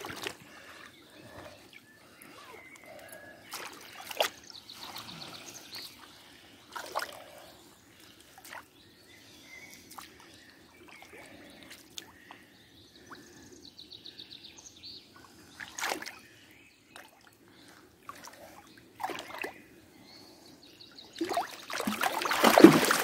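Water splashing and trickling in short, scattered bursts, with a louder rush of splashing near the end; birds call faintly twice in the background.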